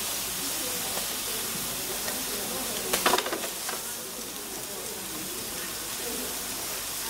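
Scallops sizzling steadily as they sear in a hot frying pan. About three seconds in, a short burst of clicks as metal tongs knock against the pan while the pieces are turned.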